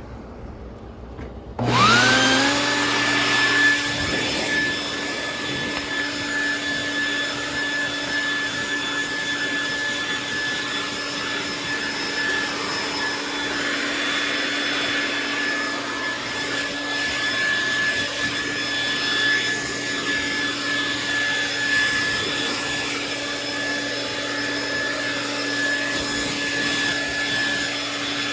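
An electric vacuum motor switches on about two seconds in, whining up to speed, then runs steadily with a constant hiss.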